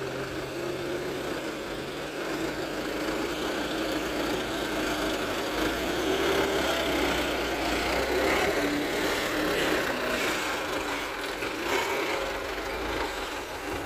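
Diesel engine of a loaded Mitsubishi Canter dump truck running as the truck drives past, growing louder toward the middle as it goes by.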